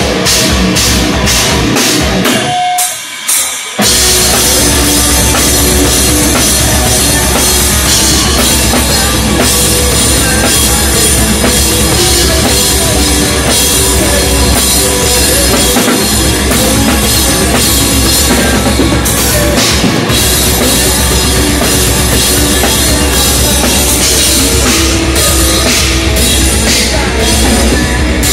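Live heavy metal band playing loud, with the drum kit and cymbals to the fore. The music breaks off briefly about three seconds in, then the full band comes back in.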